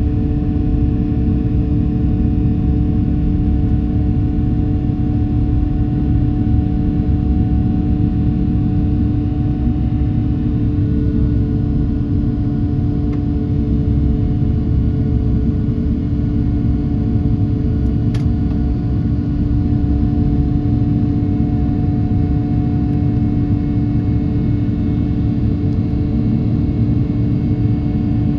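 Airbus A330-900neo cabin on departure: its Rolls-Royce Trent 7000 turbofans running at high power, a steady low drone with several held tones over airframe rumble. A faint short click about 18 seconds in.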